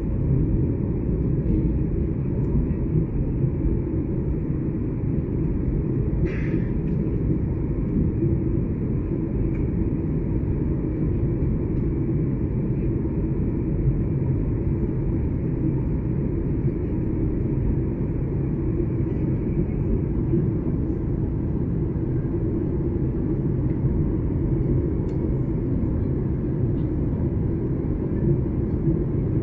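Steady low rumble and rush of an airliner cabin at cruising altitude: jet engine and airflow noise heard from inside the cabin.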